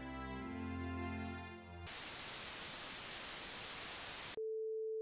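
Instrumental background music stops about two seconds in, cut off by a burst of television static hiss. About four seconds in, the static gives way to a single steady test-card tone.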